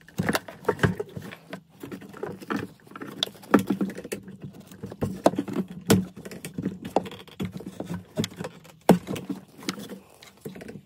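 Irregular plastic clicks, taps and rustling as gloved hands disconnect the quick-connect fuel hose fittings and wiring on a fuel pump module.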